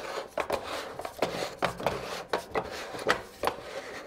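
Irregular small plastic clicks and rubbing, about three or four a second, from hands handling and adjusting an LED light's Fresnel adapter and barn doors.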